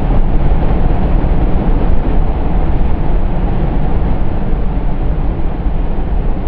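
Flamethrower flame burning, a loud, steady, unbroken low rumble.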